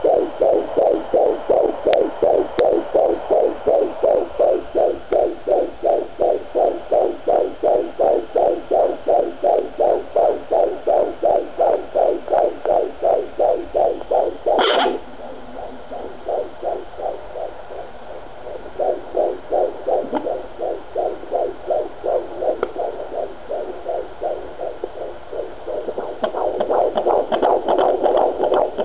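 Unborn baby's heartbeat on a fetal Doppler monitor: a fast, even whooshing pulse, roughly two to three beats a second. About halfway through a brief crackle cuts in as the probe shifts, and the beat comes through weaker for a few seconds before growing strong again near the end.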